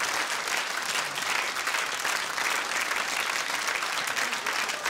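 Studio audience applauding, a dense, steady clapping of many hands.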